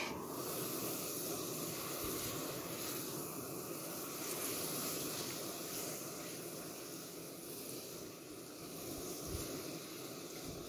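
Golden chanterelles and white fish sizzling in an uncovered frying pan on a small gas camp stove: a steady hiss.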